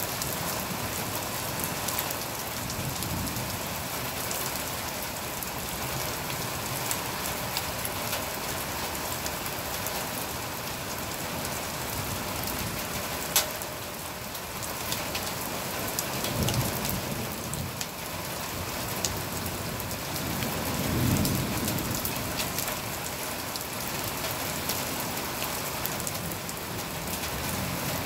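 Heavy thunderstorm rain pouring steadily, with a low rumble of thunder more than halfway through and a louder one about three-quarters in. A single sharp tick comes about halfway.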